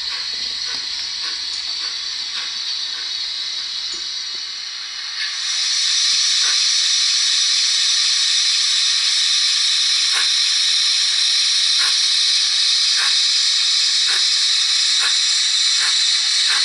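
Recorded steam hiss of a GWR 28xx class 2-8-0 steam locomotive, played by a model's Zimo MX648R sound decoder through a small 28 mm speaker in the tender. A steady hiss jumps much louder about five seconds in and holds, with faint scattered clicks.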